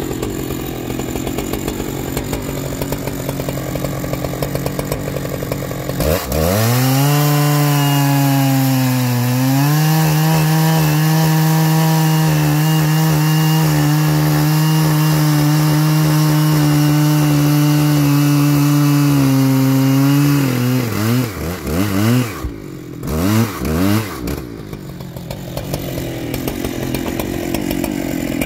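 Stock Husqvarna 3120XP 119 cc two-stroke chainsaw idling. At about six seconds it is opened to full throttle and held steady while it cuts into a large log, its pitch sagging briefly as the chain bites. Near the end it is let off and blipped a few times, the pitch falling and rising, then settles back to idle.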